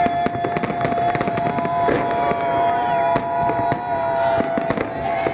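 Aerial fireworks shells bursting in quick succession: many sharp bangs and crackles, over a steady high tone.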